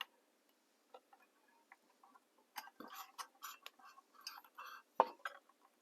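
Faint scattered clicks and small scratchy handling sounds from working on the old exterior light's wires and fittings, thickening into a quick run of little clicks in the second half with a sharper click about five seconds in.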